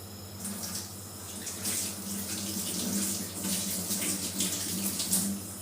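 Water running from a tap and splashing unevenly into a sink, starting about half a second in and stopping near the end.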